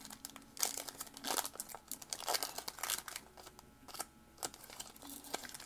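Foil wrapper of a 2014 Topps Series 1 baseball card pack being torn open and crinkled by hand, with irregular crackles and rips.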